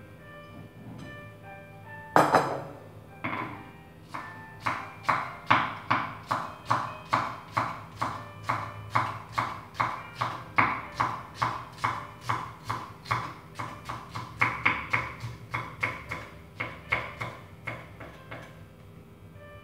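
Kitchen knife chopping green onions on a round wooden chopping board: a steady run of knocks, about two a second, with one harder knock about two seconds in.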